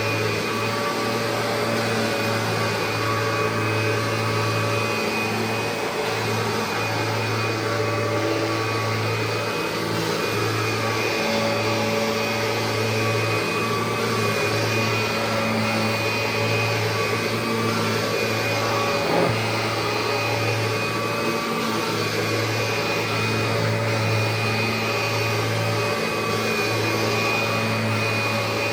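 1990 Kirby Generation 3 upright vacuum, with its nylon fan, running steadily as it vacuums carpet. It makes a constant motor whine over a low hum that swells and dips as the load changes. There is one short click about 19 seconds in.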